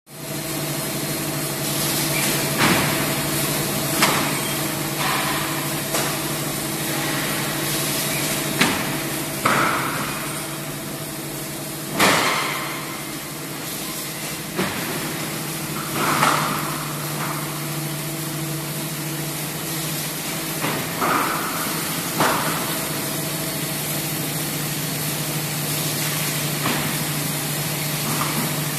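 LJT 4D250HLC paper core making machine running: a steady motor hum and drone, broken by about ten sharp knocks and clanks at irregular spacing, the loudest about twelve seconds in.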